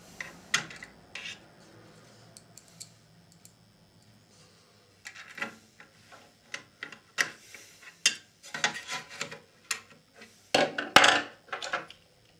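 A screwdriver working screws out of a small TV's stand: scattered light clicks and scrapes of metal on metal. Near the end, louder rubbing and clattering as the stand is picked up and handled.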